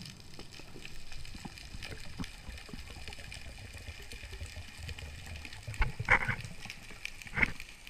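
Water gurgling and trickling, with many small scattered clicks over a low rumble, and two louder gurgling splashes in the last two seconds.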